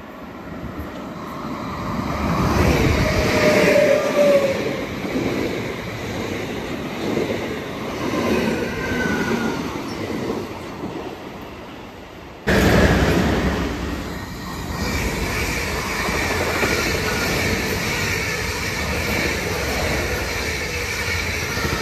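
South Western Railway electric multiple-unit trains running through a station: first a train comes up along the platform with a couple of brief wheel squeals, then, after an abrupt jump in level about halfway through, a second train runs past with a steady rushing rail noise.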